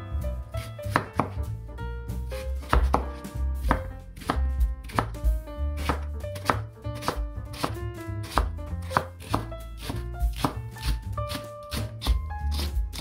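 Chef's knife slicing Korean radish into thin flat pieces on a wooden cutting board, then green onion near the end: a steady run of knocks, about two to three a second, as the blade meets the board.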